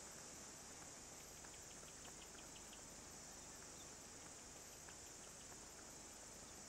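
Near silence: a faint steady hiss, with a brief run of faint, high, evenly spaced chirps between about one and a half and two and a half seconds in.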